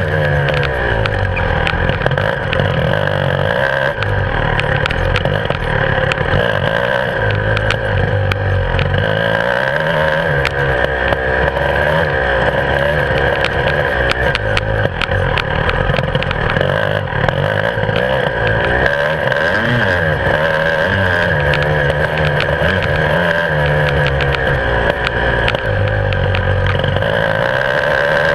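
Beta 300RR two-stroke enduro motorcycle engine running hard on a dirt track, its pitch rising and falling continually with the throttle. Many small knocks and rattles run through it.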